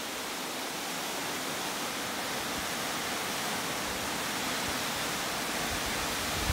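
Steady rushing of Webster's Falls, a waterfall still pouring between its winter ice.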